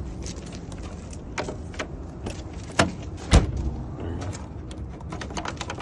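Metal clicks and rattles of a key and lock on a truck's side compartment door being worked, with two louder clunks near the middle as the compartment latch or door is handled.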